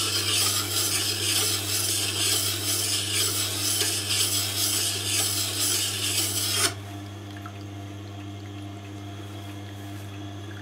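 Steel skew chisel held in a Tormek jig grinding against the slow-turning wet grindstone: a steady rasping scrape that stops suddenly about six and a half seconds in, leaving only a low hum.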